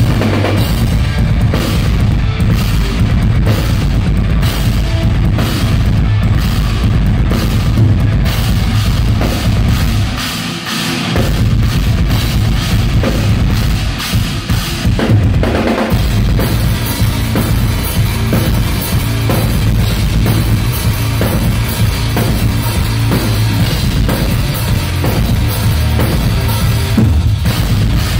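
Loud heavy metal band playing during a soundcheck, driven by a drum kit with a pounding bass drum. The low end drops out for about a second near the middle, then the full band comes back in.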